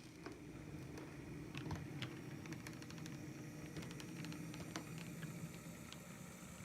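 HO scale model locomotive running on the layout: a steady low motor hum with many small irregular clicks of wheels over rail joints and track.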